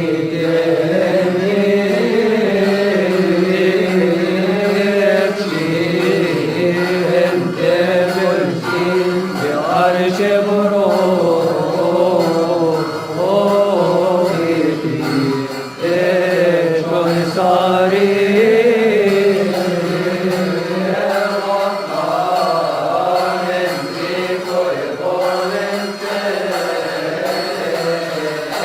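Male voice chanting a long, wordless melisma of a Coptic church hymn, the pitch winding slowly up and down over sustained vowels, with brief breaths around 16 and 22 seconds in.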